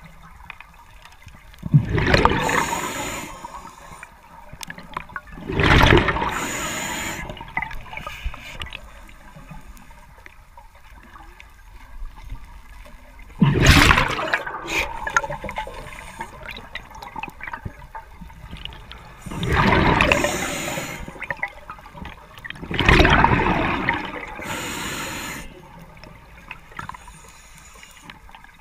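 A scuba diver breathing through a regulator underwater: about five loud bursts of exhaled bubbles a few seconds apart, each followed by a thinner hiss, over a muffled underwater hush.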